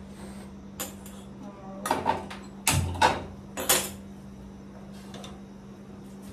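Steel kitchen utensils clinking and knocking: a spoon, small steel bowls and a jar handled on the counter beside the stove, a handful of sharp clinks and one duller knock in the first four seconds. A steady low hum runs underneath.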